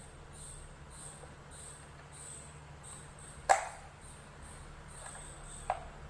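Plastic casing of an HP laptop power adapter being pried apart with a thin tool: one sharp click about halfway through and a smaller one near the end as the case gives. Behind it, a steady high chirping keeps pulsing.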